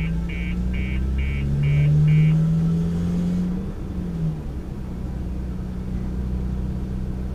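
Car engine heard from inside the cabin while driving, its pitch rising as it pulls, dipping briefly about four seconds in, then holding steady. Six short high electronic beeps sound in quick succession at the start.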